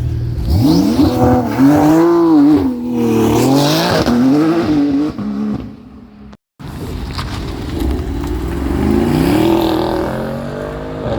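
Car engine revved hard, its pitch shooting up and swinging up and down several times before dying away. After a sudden cut, an engine revs again, rising and falling.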